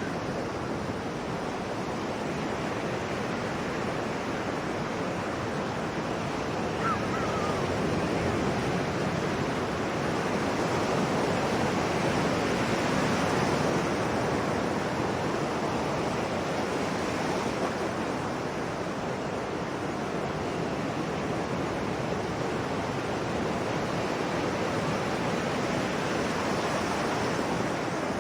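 Sea waves washing ashore in a continuous rush of surf, swelling gently about halfway through and then easing off.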